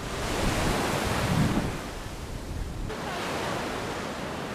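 Sea surf washing onto a sandy beach, a steady rushing hiss, with some wind buffeting the microphone.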